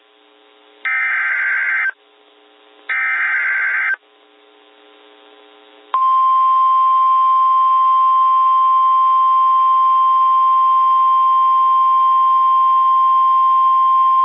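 Emergency Alert System SAME header: two bursts of shrill data tones, each about a second long and a second apart. From about six seconds in comes the steady, single-pitch 1050 Hz NOAA Weather Radio alert tone, signalling that a warning message follows.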